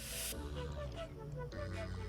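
Background music: a light melody of short notes repeating every fraction of a second over steady low tones, with a brief hiss right at the start.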